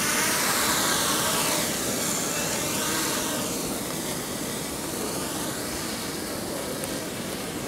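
Small printed-circuit-board quadrotor flying a short, low hop, its four motors and propellers giving a steady high whir. The tone of the whir sweeps up and down as the craft moves above the floor.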